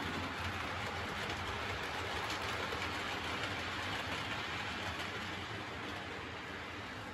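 Model train of coaches running along the layout's track: a steady rolling rattle of wheels on rails over a low hum, easing off slightly near the end as the train runs into the tunnel.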